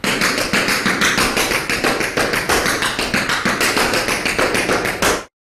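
Tap shoes' metal taps striking a wooden floor in a fast, even run of taps: a quintuple Irish step danced over and over. The tapping cuts off abruptly about five seconds in.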